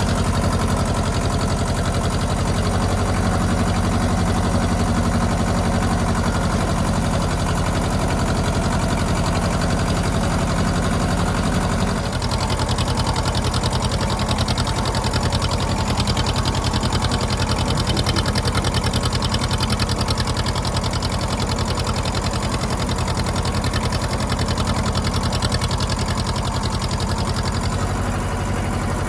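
Ford 1700 compact tractor's three-cylinder diesel engine running steadily, its note shifting about a third of the way through.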